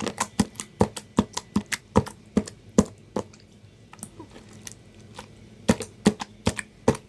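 Wet slime being squeezed and poked by hand, making a run of sharp sticky clicks and pops, several a second, thinning out in the middle and picking up again near the end.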